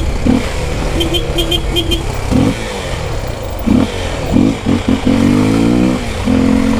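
Single-cylinder Honda XR 250 Tornado motorcycle engine running in traffic, with short throttle blips and a brief rev about five seconds in. A faint repeated high-pitched ticking is heard in short groups about a second in.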